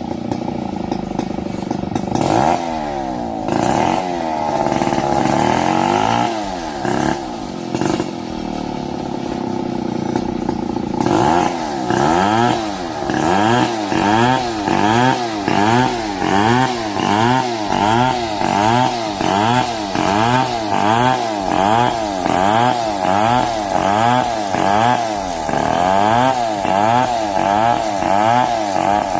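Two-stroke chainsaw cutting lengthwise along a squared wooden beam. The engine speed swings up and down irregularly at first, then from about eleven seconds in rises and falls steadily, a little more than once a second, as the saw works through the cut.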